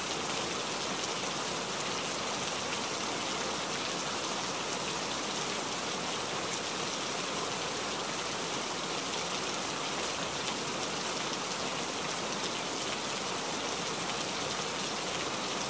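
Steady rain: an even rushing noise of falling rain with a fine patter of drops, unchanging throughout.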